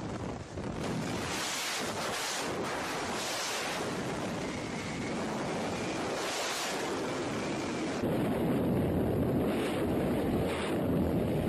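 Strong wind buffeting the microphone: a steady rushing with gusts. About eight seconds in it changes abruptly to a louder, steady rush of wind and engine noise.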